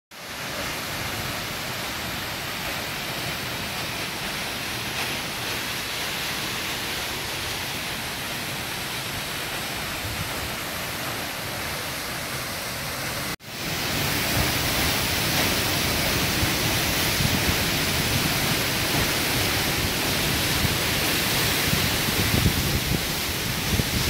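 Steady rush of a 54-metre waterfall plunging into its pool. About halfway through the sound breaks off for an instant and returns louder, with a deeper rumble.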